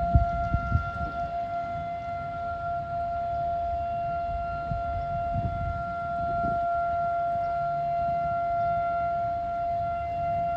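Outdoor warning siren sounding a steady tone, holding one pitch without rising or falling, over a low rumbling noise.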